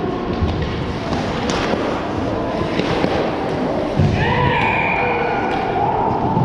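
Ice hockey play in a rink: a steady wash of noise from the ice with scattered sharp clacks and thumps of sticks, puck and boards. About four seconds in, a player shouts.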